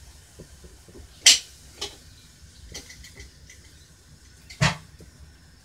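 Kitchen cookware clatter: two sharp knocks, about a second in and near the end, the second the louder with a dull thud, with a few lighter clicks between.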